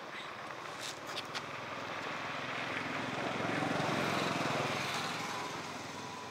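A motor vehicle engine passes by, growing louder to a peak about two-thirds of the way through and then fading. A few light clicks come about a second in.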